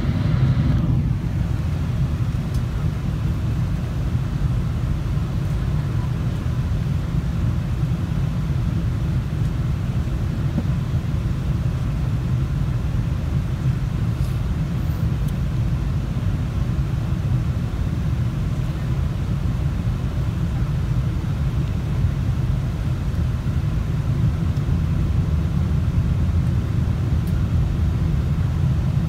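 Steady low rumble of a Boeing 777-300 airliner cabin in flight: engine and airflow noise heard from a rear window seat.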